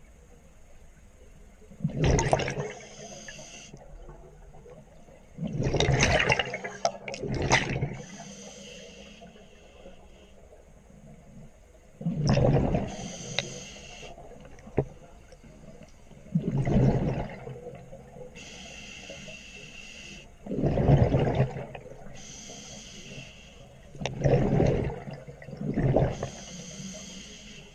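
A scuba diver breathing through a demand regulator underwater: six loud gurgling bursts of exhaled bubbles, about every four seconds, with the fainter hiss of each inhalation through the regulator between them.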